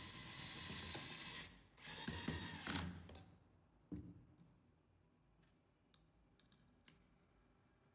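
Cordless drill/driver running in two short bursts, driving a screw into a security camera's mount, the second burst louder and stopping sharply. A single knock follows about four seconds in, then a few light clicks.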